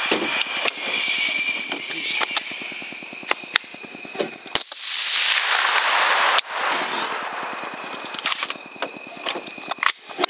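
Rifle shots and sharp cracks at uneven intervals, the loudest shot about four and a half seconds in, over a steady high-pitched whine and a rushing noise.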